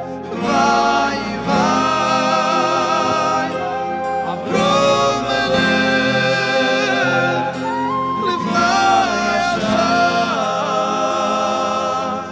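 Live Hasidic band music: men singing a slow melody over acoustic guitar, flute and keyboard, with a deep bass note three times.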